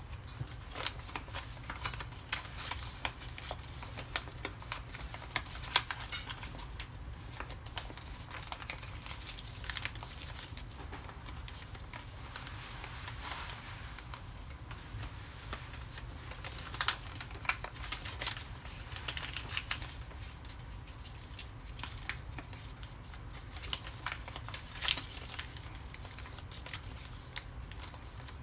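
Origami paper being folded and creased by hand: scattered crinkles, rustles and sharp little crackles, over a low steady hum.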